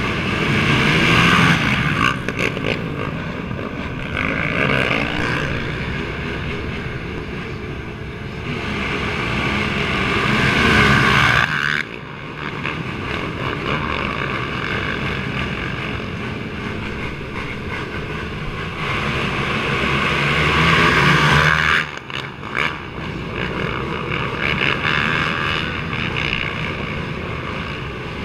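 Several racing ATV engines revving while the quads wait at the start line. The sound rises in long swells that cut off sharply twice, then runs on at a lower level.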